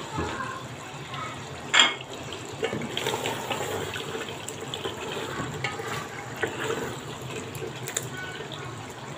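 Wooden spatula stirring meat strips through their cooking liquid in an aluminium pressure cooker pot: wet, irregular sloshing and scraping, with a sharp knock about two seconds in.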